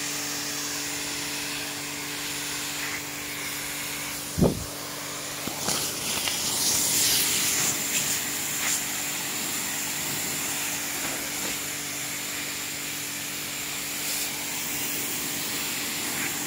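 Pressure washer running with a steady hum while its water jet hisses. There is a single thump about four seconds in, and the spray gets louder for a few seconds after it.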